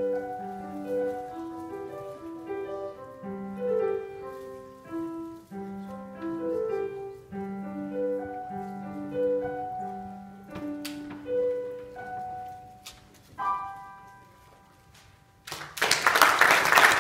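Solo piano piece: a melody over low bass notes, ending on a final chord about 13 seconds in that rings and fades. Audience applause starts about two seconds later.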